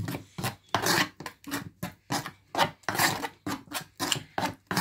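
A hand mixing a blended herb-and-onion paste with salt in a wooden bowl: quick rubbing and scraping strokes against the bowl, about three or four a second.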